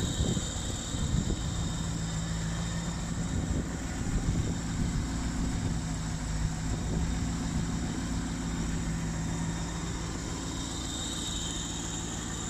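Rover 3.5-litre V8 with an Edelbrock 500 carburettor idling through a Steve Parker conversion exhaust, a steady low note. It is briefly louder about a second in and again about four seconds in.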